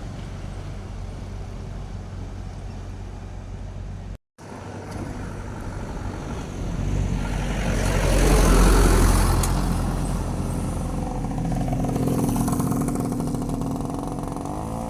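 Road traffic: a steady engine and tyre rumble, with a vehicle passing close and growing loud about halfway through, then a smaller swell near the end. The sound drops out briefly about four seconds in.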